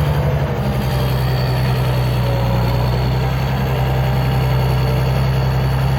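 CBT 1105 tractor's Mercedes-Benz 366 six-cylinder diesel engine running steadily at a constant speed, with no revving.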